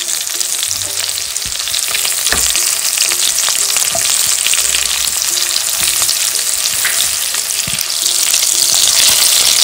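Beef sizzler hissing steadily and loudly on a hot cast-iron sizzler plate, the sauce spitting as it hits the metal, a little louder near the end. A few faint knocks of the plate and its wooden holder come through the hiss.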